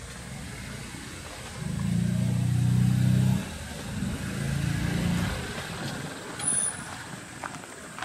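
A motor vehicle's engine rumbling nearby, loud for about two seconds, then again for about a second and a half.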